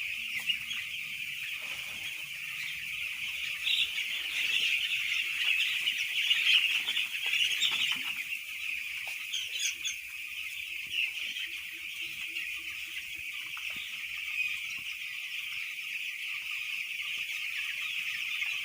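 A large flock of young broiler chicks peeping all together, a dense, continuous high-pitched chorus that swells for a few seconds near the middle.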